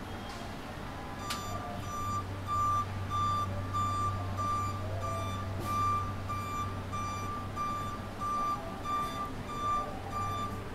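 Combilift CW walkie stacker's travel warning alarm beeping steadily, about two high beeps a second, as the truck moves with its load raised; it starts about a second in. A steady low hum lies underneath.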